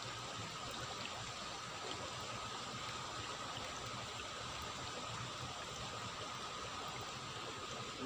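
Steady rush of running water in a rain-swollen stream.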